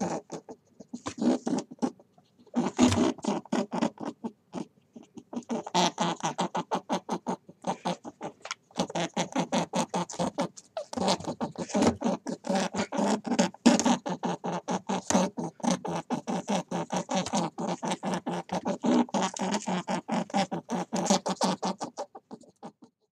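A rabbit grooming itself: rapid soft clicking and rustling as it licks and rubs its fur with its paws, in bursts with short pauses, stopping near the end.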